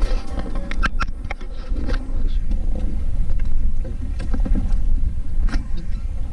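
Water lapping against the hull of a small fishing boat over a steady low rumble, with scattered clicks and knocks as caught bigeye scad are unhooked and handled over a plastic bucket.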